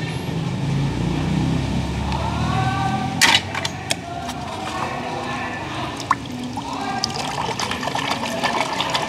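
Water sloshing and splashing as a hand sweeps through a tub of soapy water. There are a few sharp splashes around three to four seconds in, and busier crackling splashing toward the end.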